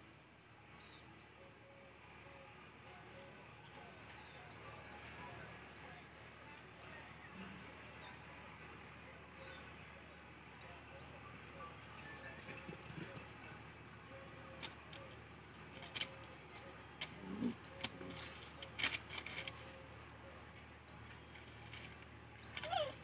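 Faint outdoor ambience with a bird singing a short, warbling phrase a few seconds in, over a steady run of short high chirps about once a second. A few light clicks come later.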